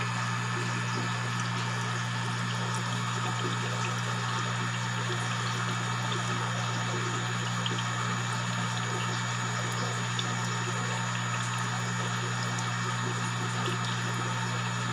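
Aquarium pump running: a steady low hum over an even hiss of moving water.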